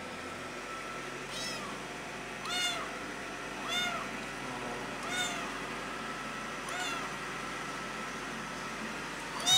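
Young tabby kitten meowing repeatedly: six short, high calls that rise and fall in pitch, spaced a second or so apart, the last near the end the loudest. A kitten's call for its mother, as the uploader takes it.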